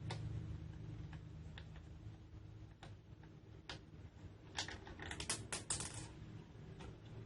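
Light, scattered clicks and taps of metal and plastic parts as a side handle is fitted and screwed onto an angle grinder, with a quick run of several clicks about halfway through, over a faint low hum.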